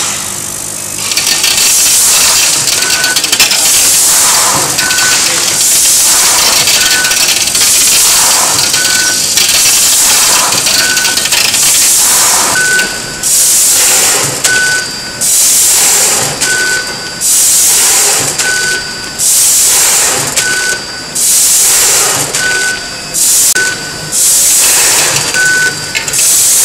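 Vertical packing machine bagging dog-food pellets: a loud hissing rush of pouring pellets and machine noise that pulses about every two seconds. A short high beep comes with each cycle.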